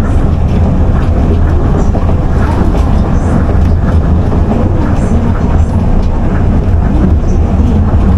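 Tokyo Monorail train running, a steady low rumble with some clatter from the running gear.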